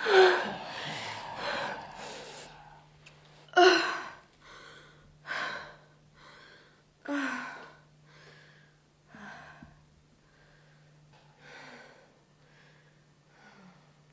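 A woman's ragged, gasping sobs, one breath every couple of seconds, the first loudest and the rest growing fainter, over a low steady hum.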